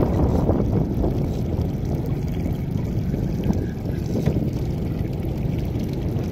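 Steady low rumble of wind buffeting the microphone aboard a boat on open water.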